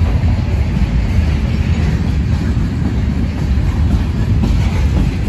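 Freight train cars, mostly covered hoppers, rolling past at close range: a steady low rumble of steel wheels on the rails.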